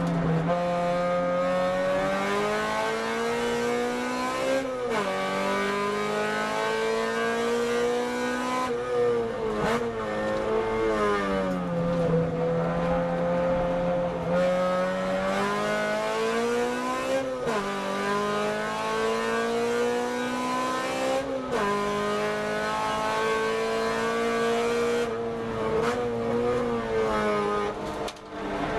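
Car engine heard from inside the cabin on a fast lap of a race circuit. It revs up repeatedly, with a sudden drop in pitch at each upshift, and slowly winds down again into the corners.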